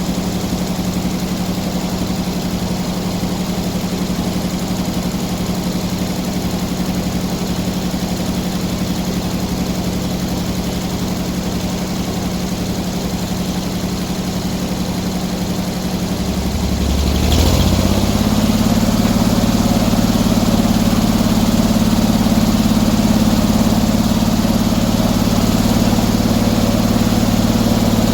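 Engine idling steadily, then throttled up about seventeen seconds in and holding at a higher, steady speed.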